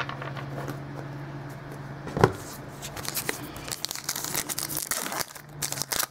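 A trading card pack's wrapper torn open and crinkled by hand, giving a dense crackling through the second half. A single sharp tap about two seconds in is the loudest moment.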